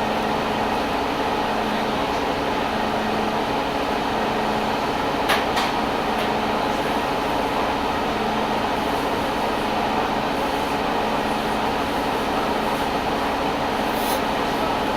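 Orion VII CNG bus running steadily on its Detroit Diesel Series 50G natural-gas inline-four, a constant engine hum under an even mechanical drone, with one short click about five seconds in.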